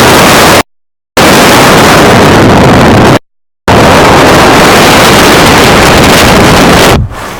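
Loud rushing noise that overloads the recording, with no tone or rhythm in it, cutting out to total silence twice and dropping off sharply near the end.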